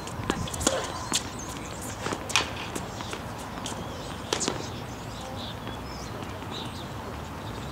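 Tennis rally on a hard court: sharp pops of racket strings striking the ball, the loudest about two and a half seconds in and another pair just past four seconds, with players' footsteps on the court between the hits.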